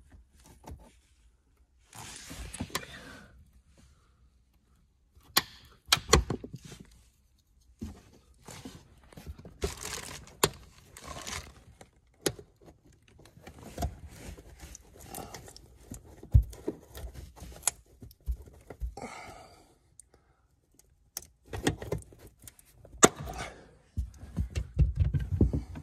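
Hands working a car's trunk trim: plastic push-pin clips popping out and the carpeted trunk side liner rustling as it is pulled back, with scattered clicks and thunks of handling, heavier thumps near the end.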